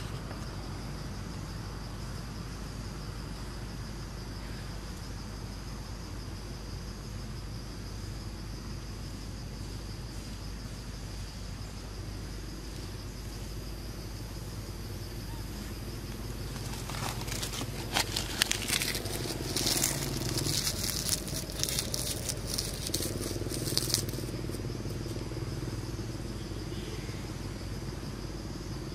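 Outdoor woodland ambience: a steady high insect drone over a low hum. From a little past halfway, several seconds of dense crackling and rustling, the loudest sound, which stops abruptly.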